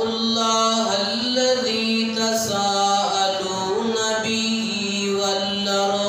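A man reciting Quranic verses in a slow, melodic chant through a microphone, holding long drawn-out notes that glide up and down.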